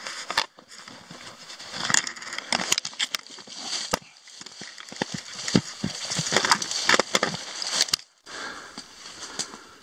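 Footsteps scrambling over rocky ground: an irregular run of crunches, scrapes and sharp clicks of stone and debris underfoot.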